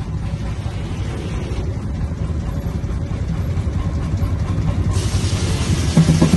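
Keck-Gonnerman engine running a belt-driven sawmill under load: a steady, pulsing low rumble, with a higher hiss of noise coming in suddenly about five seconds in.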